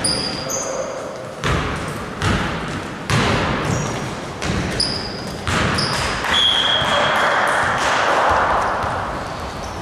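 Basketballs bouncing on a gym floor in irregular thuds, about one a second, with short high sneaker squeaks in between.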